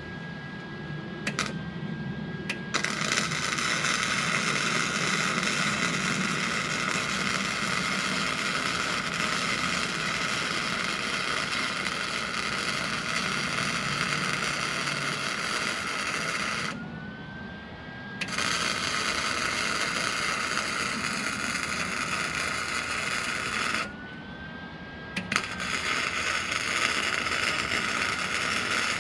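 Electric arc welding on steel: the welding arc's steady crackling hiss as a new nut is welded onto the baler hitch, in three runs with two short pauses of about a second and a half, a faint whine rising in each pause.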